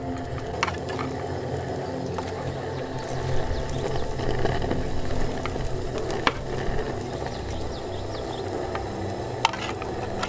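Shredded meat frying in a small camping pan on a portable gas stove, a steady crackling sizzle. A few sharp clicks of utensils against the pan come through it.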